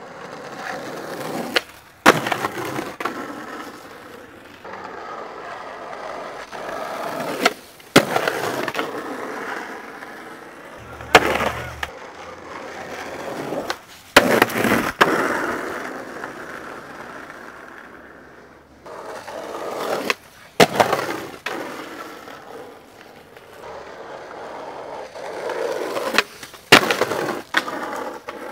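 Skateboard wheels rolling over rough asphalt and pavement, the rolling swelling and fading as the board passes. It is broken about five times by sharp clacks, mostly in close pairs: the tail popping and the board landing on tricks.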